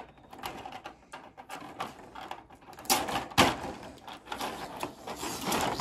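Clear plastic packaging crinkling and rustling, with many small clicks of plastic parts knocking together as hands sort through a bag of small figure pieces. It is loudest for a moment about three seconds in.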